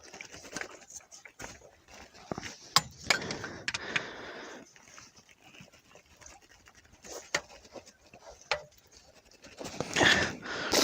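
A wrench clicking and knocking against a seized fitting on an RV propane changeover valve as someone strains to break it loose, with heavy, effortful breathing. There are a handful of sharp clicks, with bursts of panting around them.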